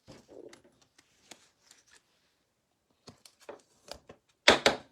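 Trading cards being handled and shuffled by hand: scattered light clicks and rustles, with a louder burst of rustling about four and a half seconds in.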